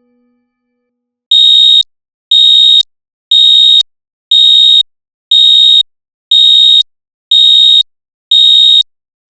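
Digital alarm clock beeping: eight high-pitched electronic beeps, about half a second each and one per second, starting about a second in.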